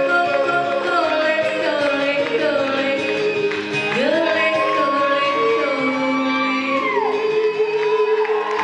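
Female country singer yodeling into a microphone over strummed acoustic guitar. About four seconds in she swoops up to a long held high note, which drops away about three seconds later.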